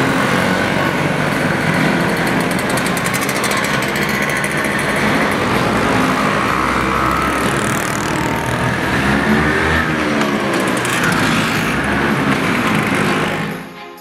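Several two-stroke Vespa scooters riding past one after another, their engines running with a pitch that rises and falls as they go by. The sound drops away near the end.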